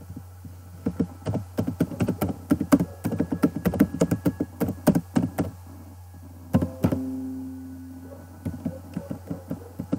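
Computer keyboard typing: quick runs of key clicks, pausing around six seconds in. A louder knock near seven seconds is followed by a short ringing tone that fades, and a steady low hum runs underneath.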